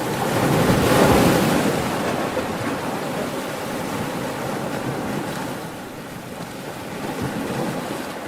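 Ocean waves: a wave breaks about a second in, followed by a steady wash of surf that swells again near the end.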